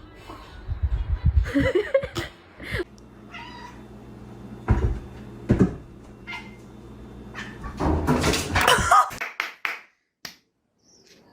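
Domestic cat meowing several times in short separate calls, the loudest ones near the end, which break off suddenly.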